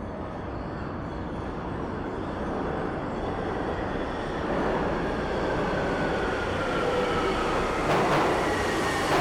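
New York City subway train running on the tracks, its rumble growing louder, with a thin whine slowly falling in pitch and two sharp clacks near the end.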